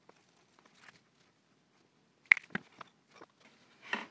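Clamps being put on a glued wooden jig: a few sharp clacks and knocks as the metal clamps are set against the wood and tightened, the loudest about two seconds in, then a short scrape near the end.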